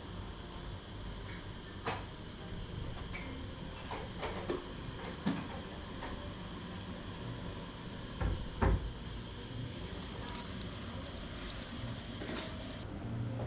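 Scattered knocks and clatters over a steady low background hum, the loudest pair of knocks a little past the middle.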